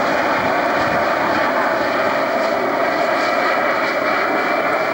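Helicopter flying past: a steady, loud rush of engine and rotor noise.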